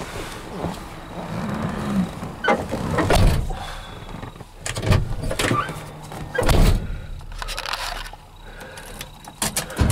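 Thumps and knocks of someone moving about in the cab of a 1973 Chevrolet C10 pickup, with the loudest thump about six and a half seconds in.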